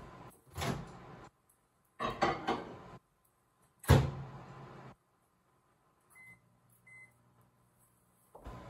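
Microwave oven being loaded and started: clicks and knocks as the door opens and the measuring cup of cream goes in, a loud clunk of the door shutting about four seconds in, two short keypad beeps, then a faint low hum as it starts running.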